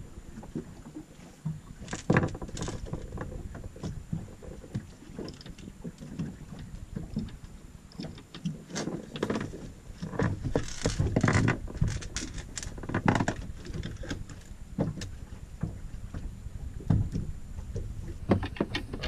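Irregular knocks, clicks and rustles from a fishing rod and spinning reel being handled against the boat's hard deck.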